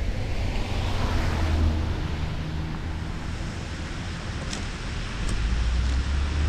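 Wind rumbling on the microphone of a car-roof camera while driving along a wet street, over a steady hiss of tyres on wet pavement. Two faint ticks a little past the middle.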